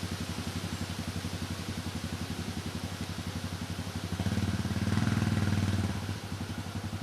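ATV engine idling with a fast steady pulse, revved up for about two seconds in the middle before dropping back to idle.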